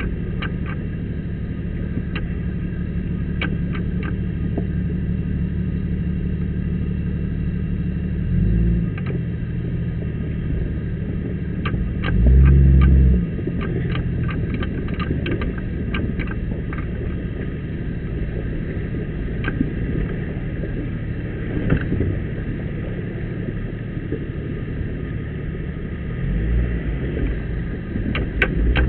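Off-road Jeep engine running at low speed with a steady low rumble, revving up briefly about 8 and 12 seconds in and again near the end. Scattered sharp clicks and knocks sound over it.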